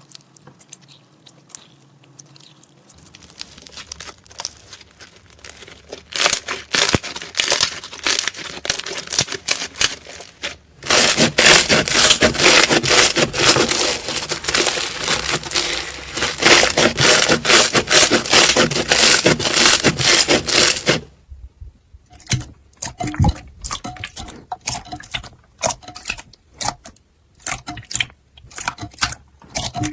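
Slime being squeezed, pressed and stretched by hand, crackling and popping. It is faint at first, becomes a dense run of crackles through the middle, then breaks into sparser separate sticky pops and clicks near the end.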